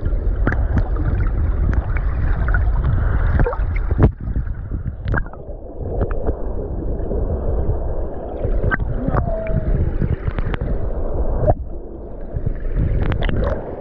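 Muffled water noise heard through a submerged camera: a steady low rushing and gurgling, with scattered clicks and knocks, the loudest about four seconds in.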